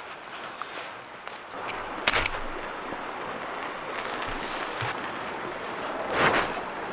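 A safety match struck on its matchbox about two seconds in, one short sharp scratch. A louder rustle near the end as the lit match is pushed into a small wood stove's kindling.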